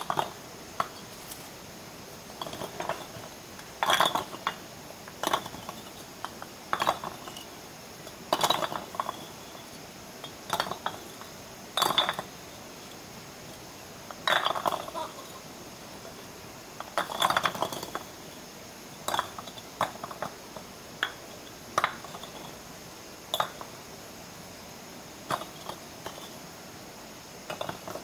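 Hand-tool work on bricks and cement mortar: short scrapes and hard clinks in irregular clusters, one every second or two.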